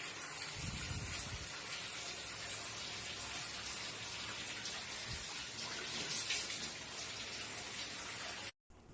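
Water running steadily, cutting off abruptly near the end.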